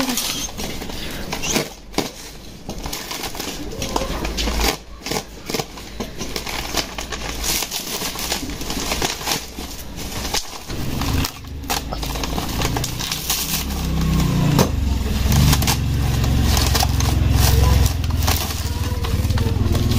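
Bubble wrap and plastic packaging crinkling and rustling as hands pull it off a parcel, with scattered sharp crackles. From about halfway through, a low rumble builds underneath and gets louder.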